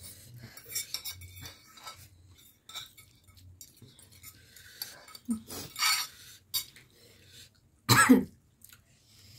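Metal forks scraping and clinking on ceramic plates as noodles are eaten, with coughing, the loudest a short burst about eight seconds in, the kind brought on by very spicy ramen.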